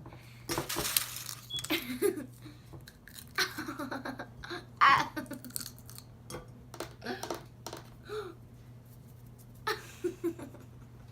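A child giggling and laughing in short bursts, with scattered clicks and knocks.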